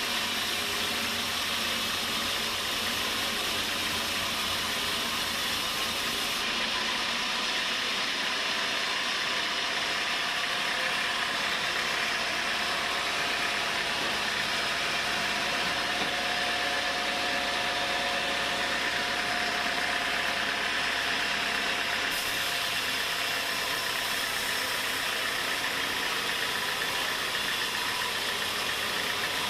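Sawmill machinery running steadily: a constant, loud mechanical drone with no sharp breaks.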